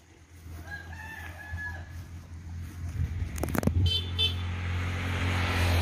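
A rooster crows once, one long call lasting over a second. After it come a few bumps and a rush of noise that grows louder toward the end, over a low steady hum.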